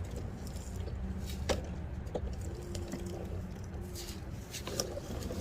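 Lawn mower engine running steadily, a low hum, with a few light clicks over it.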